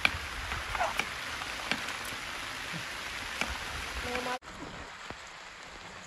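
Steady rain falling, with scattered sharp ticks of single drops striking. About four seconds in the sound drops abruptly and carries on as softer rain.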